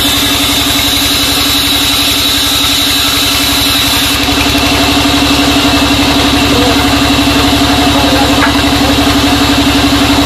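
Sawmill band saw running steadily: a loud, even machine hum with a fast pulsing beat underneath and a thin high whine above.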